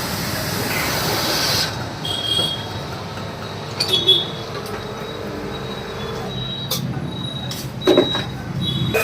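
4HP car pressure washer pump running with a steady hum. A high hiss stops about a second and a half in, and a few sharp knocks and clicks follow while the pump keeps running.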